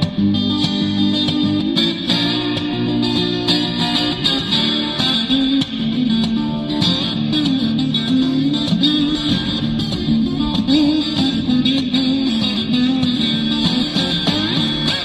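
Background music led by guitar, with a steady, continuous band sound.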